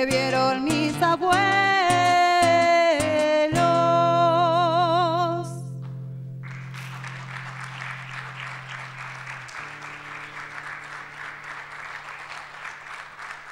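A woman singing the closing phrase of a Spanish-language song with acoustic guitar, ending on a long held note with vibrato. About six seconds in, an audience breaks into applause that carries on to the end.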